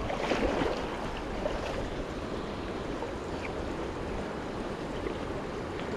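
River water running steadily, an even rushing noise.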